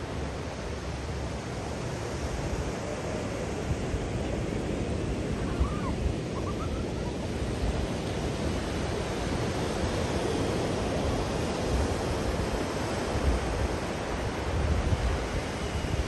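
Surf breaking and washing up a sandy beach, a steady rush of waves, with wind gusting on the microphone in low rumbles.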